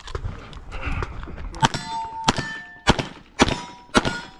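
Smith & Wesson 625 revolver in .45 ACP firing five quick shots about half a second apart, starting about a second and a half in. After each shot comes the short metallic ring of a hit steel target plate.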